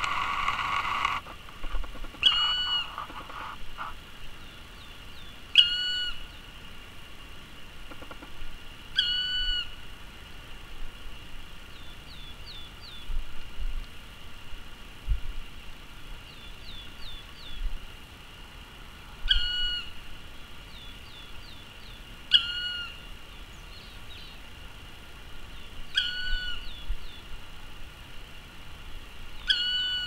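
Black woodpecker calling: a single drawn-out note repeated every three to four seconds, with short high chirps from another small bird in between. A brief rustle is heard in the first second.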